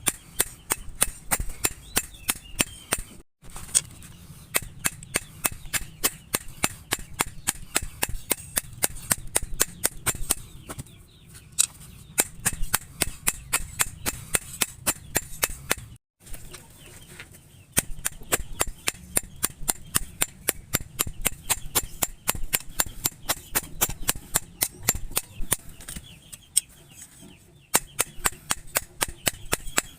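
Rapid, evenly spaced hammer blows on hot bearing steel, about four a second, each with a short, bright metallic ring. The hammering breaks off for a moment twice.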